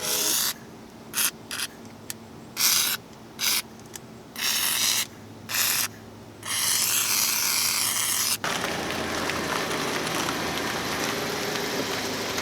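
A run of short rasping, scraping bursts, then an abrupt change about eight seconds in to a car engine idling steadily.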